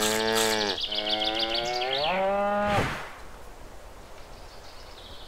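Cow mooing twice: one moo that ends under a second in, then a longer moo that rises in pitch at its end.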